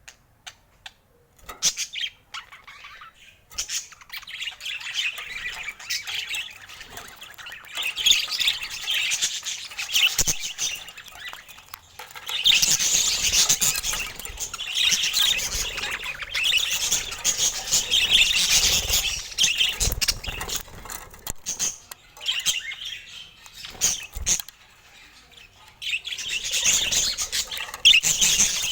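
Pet budgerigars chattering with chirps and squawks, sparse at first, then a busy stretch of overlapping calls, with a short lull near the end.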